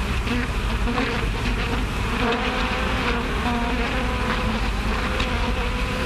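Bees buzzing: a continuous, loud drone with a wavering pitch, as a film sound effect.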